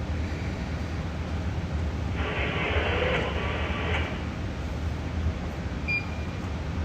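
Steady low hum of shipboard machinery. About two seconds in, a hiss lasts roughly two seconds, and near the end there is a click with a short high beep.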